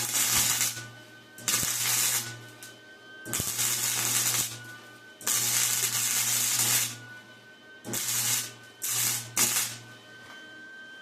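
Welding arc crackling and hissing on an exhaust pipe in about seven short start-stop bursts, each under a second to about a second and a half long, with the welder's low hum under each burst.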